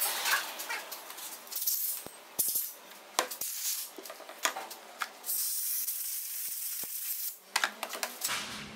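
Light clicks, taps and rattling of hand work cleaning crumbled rubber damper pieces out of a car's electric power-steering column housing, with a steady hiss from about the middle to near the end.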